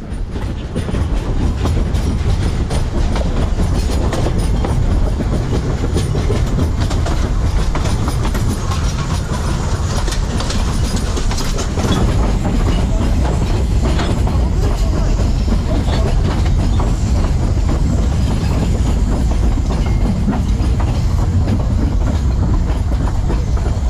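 Narrow-gauge steam train's wooden-bodied carriages rolling along the track: a steady rumble with wheels clicking over the rail joints.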